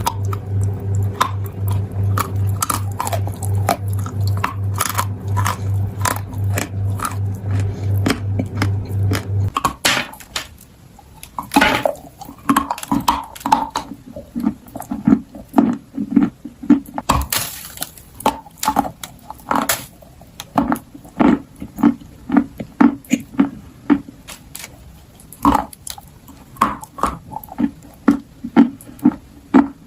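Close-up biting and chewing of crunchy clay and chalk dipped in wet clay paste: sharp crunches and crackles, with chewing in between. A low, pulsing hum runs underneath at first and stops about a third of the way in.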